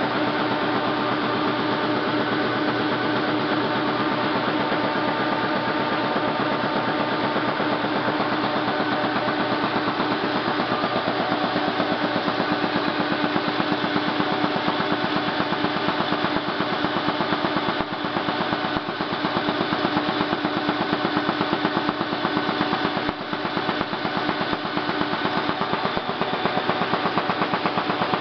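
Halm Super Jet two-colour perfector envelope press running at speed, feeding and printing envelopes with a fast, even mechanical clatter.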